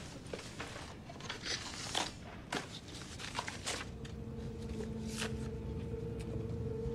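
Light rustles and small knocks of a gift box being handled and opened in a small room. About four seconds in, a soft held music tone fades in underneath.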